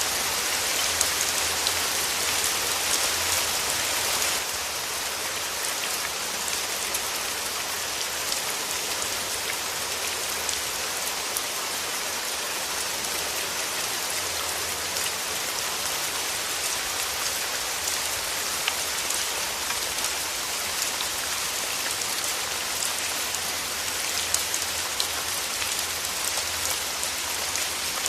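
Steady rain falling, with individual drops ticking sharply on a surface. The rain steps down slightly in loudness about four seconds in.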